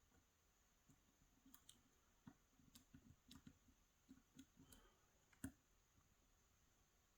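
Faint light clicks and ticks of a lock pick working the pins inside a Yale 2000 Plus lock, with one sharper click about five and a half seconds in.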